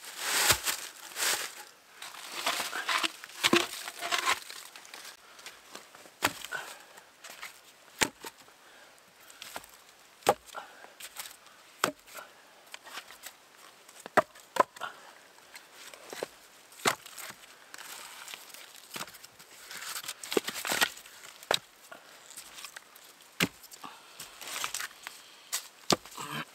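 Firewood being cut to length and handled: sharp wooden knocks at irregular intervals, about one every second or two, with rustling and scraping of wood between.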